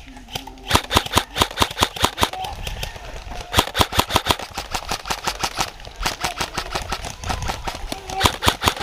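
Airsoft guns firing in rapid strings of sharp cracks, several shots a second, coming in bursts with brief lulls.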